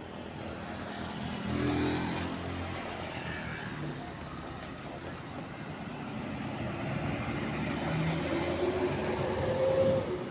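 Heavy vehicle, most likely a bus, driving past on the road with its engine running. The sound swells about two seconds in, eases, then builds again near the end.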